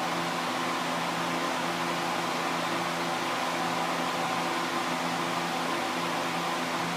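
Steady machine hum over an even hiss, unchanging throughout, like a running motor or fan.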